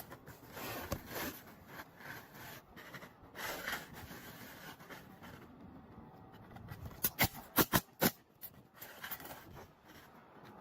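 Asphalt shingles scraping and rustling as they are handled and slid into place on a roof hip, then a quick run of about five sharp knocks a little after seven seconds in.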